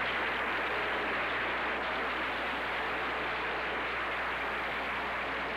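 Large audience applauding, a dense steady clapping that swells up just before and holds evenly throughout.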